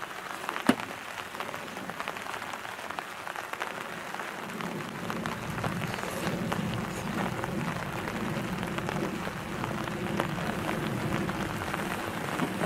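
Wood fire crackling in a fire pit, with scattered small pops and one sharp pop near the start. A low steady rumble joins about four and a half seconds in.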